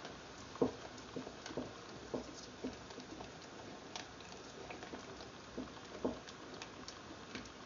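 A wooden spoon stirring frog legs in a stainless steel stockpot of simmering water: soft, irregular knocks of the spoon against the pot, about two a second, over faint bubbling.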